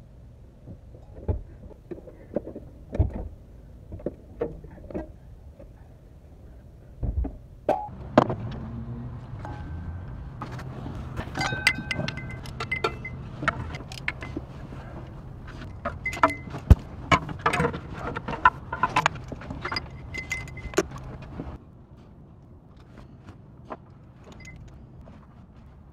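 Hand tools working on an engine: a ratchet clicking and wrenches and sockets clinking on metal as bolts are undone. A steady low hum joins in about a third of the way through and cuts off suddenly well before the end.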